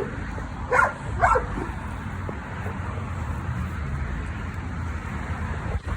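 American Bully dog barking twice about a second in, with a brief yelp just before, over a steady low rumble.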